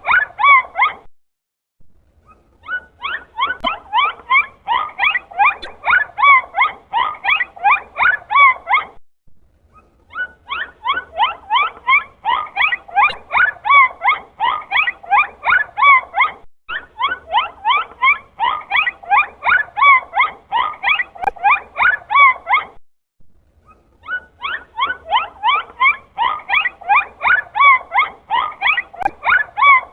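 Dolphin vocalisations: rapid runs of short squeaky chirps, several a second, each bending in pitch, in long trains broken by brief pauses.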